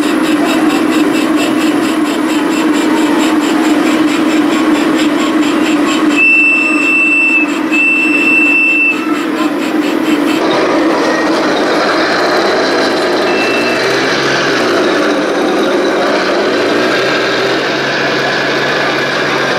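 Engine sounds from 1:16 RC tanks' sound units: a steady running drone with an even rapid pulse, two long high beeps about six and eight seconds in, then a different engine note from about ten seconds on whose low pitch rises and steps as the tank drives.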